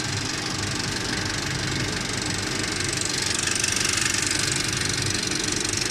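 Cinemeccanica Victoria 5 35mm film projector running with its lamphouse ventilation: a steady mechanical whirr over a low hum, growing a little louder about three and a half seconds in.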